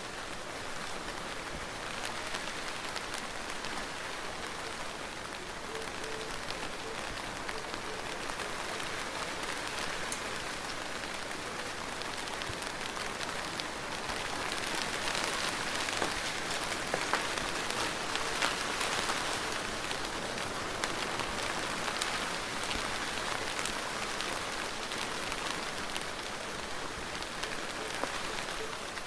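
Steady rain falling and pattering on surfaces, with many separate drop ticks, swelling a little about halfway through.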